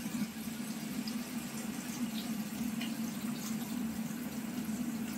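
Tangra fish frying in hot oil in a kadai: a steady sizzle with scattered small crackles, over a steady low hum.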